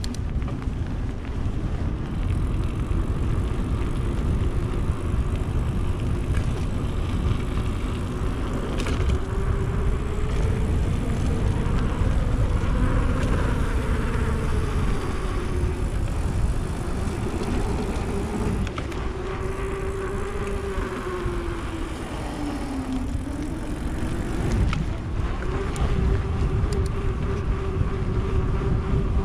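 Wind buffeting the microphone of a camera on a moving mountain bike, with a steady hum that slowly rises and falls in pitch and dips lowest late on.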